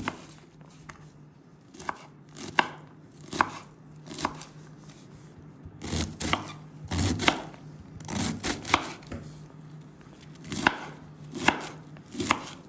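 Kitchen knife shredding a head of white cabbage on a bamboo cutting board: crisp, irregular chops, each stroke ending in a knock of the blade on the board, in uneven runs of a few strokes a second with short pauses.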